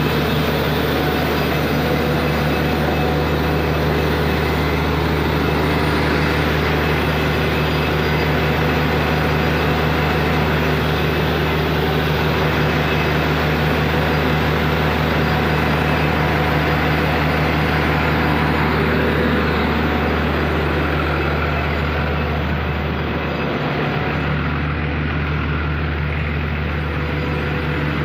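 Truck-mounted borewell drilling rig running: a loud, steady engine drone with a deep hum, easing slightly about twenty seconds in.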